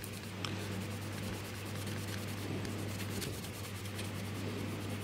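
A cloth rubbing polish over a clear plastic radio dial: a faint, scratchy rubbing with small ticks, over a steady low hum.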